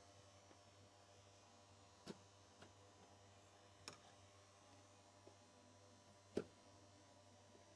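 A few faint sharp clicks and knocks as plastic bumper clips are pushed into place, the loudest about six seconds in, over a low steady hum.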